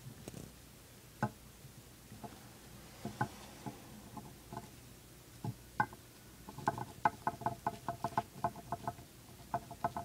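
Dwarf hamster gnawing a crunchy cheese chew made of wheat gluten, rice and corn: scattered crunches, then a quick run of bites at about six a second past the middle, and a few more near the end.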